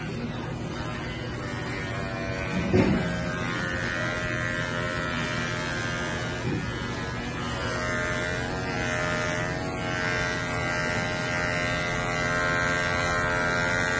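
Corded electric pet hair clippers running with a steady buzz while trimming a small dog's fur, the pitch wavering for a couple of seconds past the middle. A short knock about three seconds in, and a fainter one a few seconds later.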